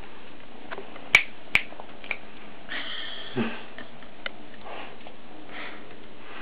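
Maine Coon kitten chewing on a feather held in its mouth while being handled on a lap: small mouth and fur-rustling noises, with two sharp clicks a little over a second in as the loudest sounds and a short scratchy rustle around three seconds in.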